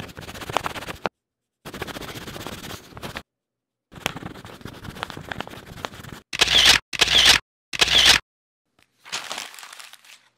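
Cra-Z-Art wax crayons scribbling on paper in several separate bursts with silent gaps between them, the quick back-and-forth strokes making a dense scratching. About two-thirds of the way through come three short, louder scribbles.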